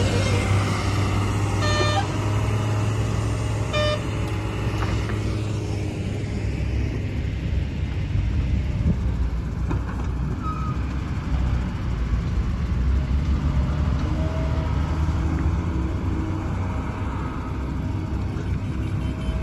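Diesel tipper truck engines running with a steady low rumble as a loaded tipper drives past close by, with two short beeps about two and four seconds in. Afterwards, the rumble of the trucks and excavator working carries on.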